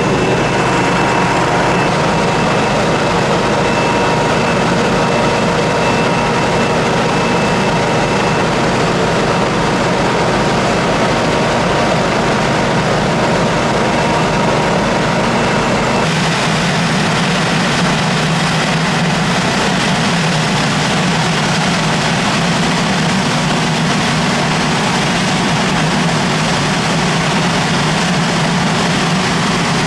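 Steady, loud noise of running engines and machinery, with a thin steady whine over it. About halfway through it changes suddenly to a lower, heavier engine hum without the whine.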